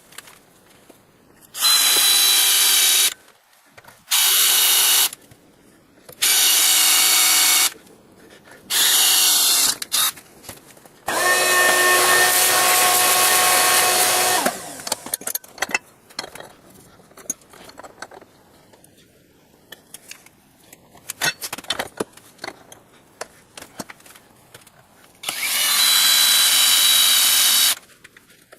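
Power drill drilling holes, run in about six bursts of one to three seconds each with a steady whine, the longest about eleven seconds in. Between the bursts there are short pauses with small clicks and handling noises, and there is a longer pause of about ten seconds before the last burst.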